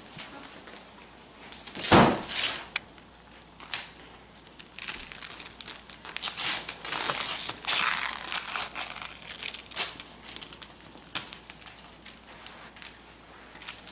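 Wrapping paper crinkling and tearing in irregular bursts as a present is unwrapped, busiest in the middle, with a sharp thump about two seconds in.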